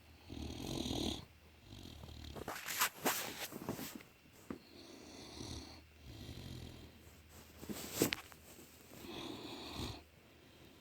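Great Dane snoring in deep sleep: a slow series of rattly snoring breaths, one every second or two, with a couple of sharp clicks among them.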